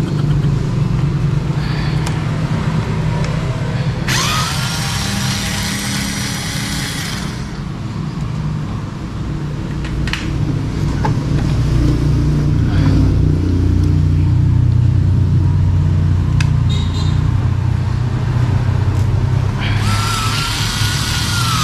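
Cordless electric screwdriver whirring in two runs, spinning up with a rising whine about four seconds in and again near the end, with a few clicks in between, over a steady low hum.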